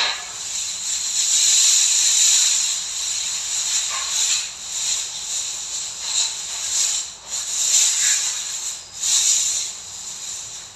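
A loud hissing noise, mostly high-pitched, that swells and fades repeatedly.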